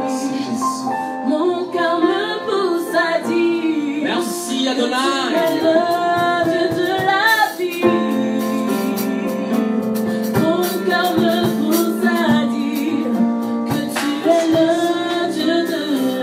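Women singing a worship song into microphones over sustained keyboard chords, with the chord changing about halfway through.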